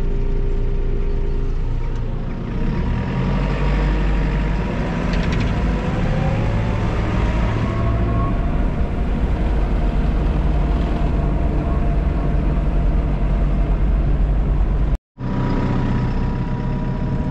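Engine and road noise heard from inside a moving farm vehicle's cab, a steady low drone whose note climbs a few seconds in as the vehicle speeds up. The sound drops out for an instant about fifteen seconds in, then a similar engine drone carries on.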